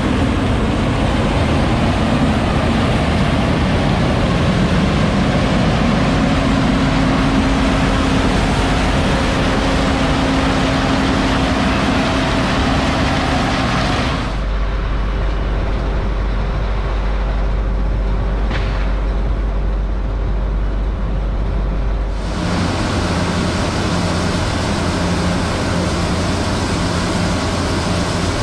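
Heavy harvest machinery engines running steadily under load, changing character twice as different machines are heard.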